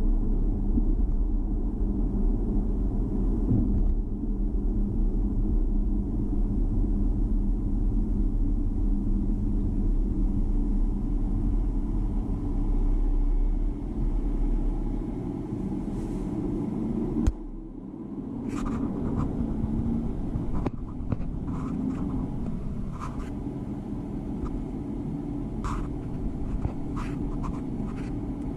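Car interior road and engine rumble while driving on a city street. The rumble drops off about halfway through as the car comes to a stop and idles, with a few short, irregular clicks afterwards.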